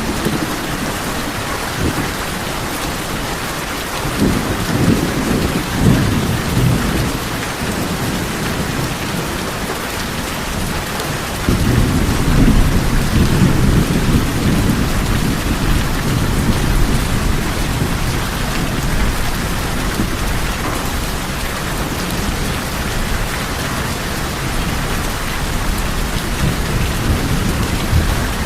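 Steady rain falling on tin roofs, with low rolls of thunder: one about four seconds in, and a louder, longer one starting about eleven seconds in that slowly dies away.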